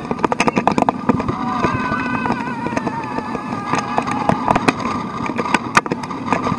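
Slinky Dog Dash roller coaster train running along its steel track, with the wheels clattering in many sharp knocks over steady rushing noise and wind on the microphone. A wavering high tone rises and falls between about two and four seconds in.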